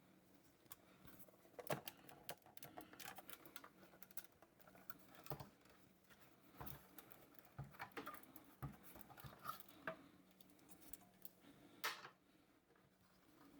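Faint, scattered clicks and taps of hands handling a Lenovo M715q tiny PC's metal and plastic case while opening it up, with a few sharper knocks among them.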